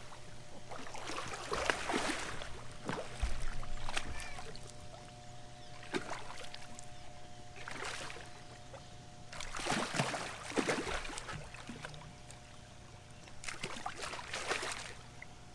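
A hooked fish splashing and thrashing at the water's surface beside a boat as it is fought in and landed, in several separate bursts of splashing.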